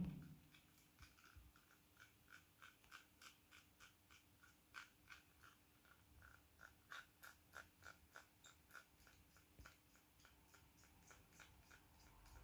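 A thump, then faint, quick scraping ticks, about three or four a second, of a screwdriver tip being worked and twisted along the edge of a Garmin Edge 520's screen frame to scrape off old adhesive.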